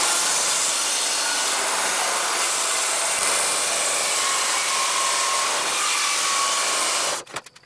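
Festool circular saw running on a guide rail and cutting through an oak board, a steady, even saw noise that cuts off near the end.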